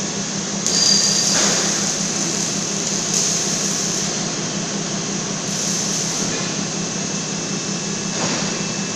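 Automatic gantry submerged-arc welding machine working: a steady low hum under a hiss, with the hiss surging briefly four or five times.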